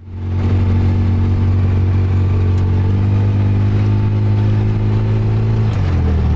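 Off-road vehicle engine running steadily at a constant speed. Its note dips and shifts near the end.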